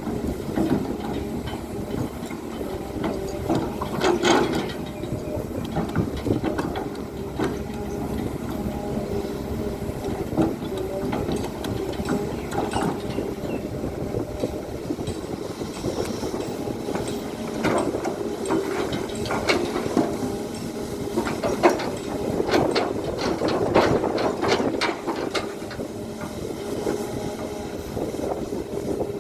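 Komatsu PC200 hydraulic excavator working: its diesel engine running steadily, with repeated sharp clanks and knocks of the bucket and material, coming thick and fast in the second half.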